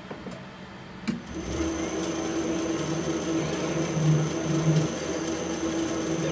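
Small metal lathe starting with a click about a second in, then running steadily and spinning a brass block in a four-jaw chuck: a motor hum with a thin high whine over it.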